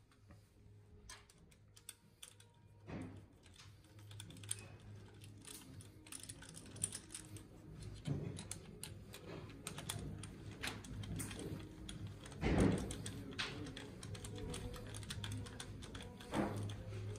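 Small hand tools, a screwdriver among them, clicking and clinking against the metal parts of a Mercedes OM642 diesel engine's cylinder head in quick irregular clicks, with a few louder knocks, the loudest about twelve seconds in.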